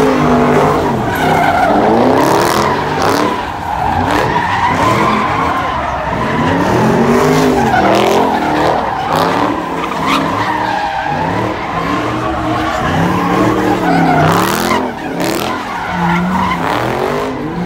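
A car doing a burnout: its engine revving up and falling back over and over while the tyres squeal.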